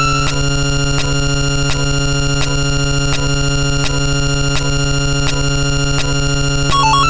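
A loud, dense pile-up of many electronic sound effects looping on top of one another: steady held tones over a low buzz, with a regular knock about every 0.7 s. A short stepped beeping jingle sounds near the end.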